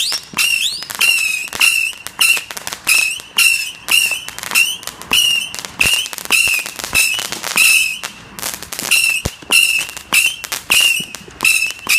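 A multi-shot firework cake firing a long steady barrage, about two to three shots a second, each a sharp crack followed by a short shrill whistle. It is taken for a 100-shot Screaming Demons cake.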